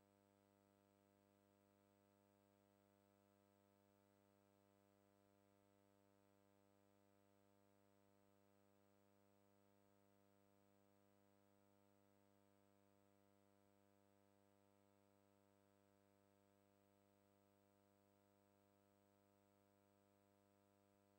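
Near silence, with only a faint, steady hum.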